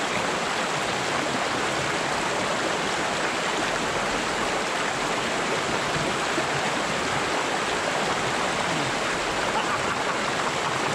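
Steady rush of a fast-flowing, rocky mountain stream, water running over boulders in shallow rapids.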